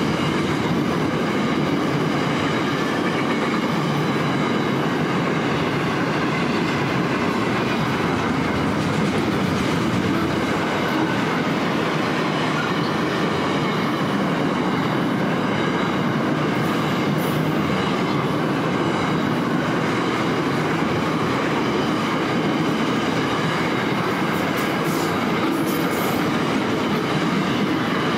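Loaded container wagons of a long freight train rolling past close by: a steady rumble of steel wheels on rail that holds at one level, with a few faint high clicks in the second half.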